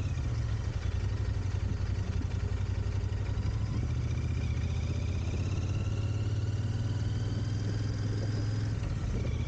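A vehicle in motion with a steady low rumble. A faint high whine slowly rises in pitch and stops shortly before the end.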